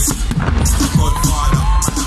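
Loud music with a heavy bass beat and a vocal line, played for the fireworks display, with a few firework bangs mixed in.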